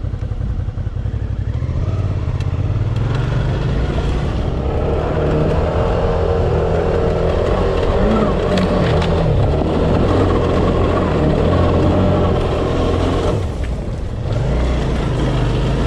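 Dual-sport motorcycle engine running under way on a trail, its pitch rising and falling with the throttle, with a brief drop in engine sound about fourteen seconds in.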